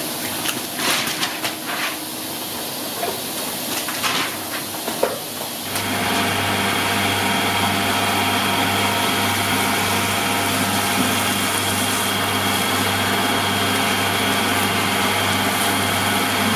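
Splashing and rinsing in shallow water with scattered clicks, then, about six seconds in, a steady motor hum with a low drone starts suddenly and runs on unchanged: electric machinery of a rice paper factory running.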